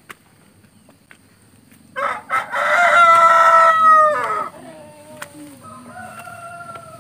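A rooster crowing loudly about two seconds in, a stuttering start drawn out into a long call that drops in pitch as it ends. A second, fainter crow follows near the end.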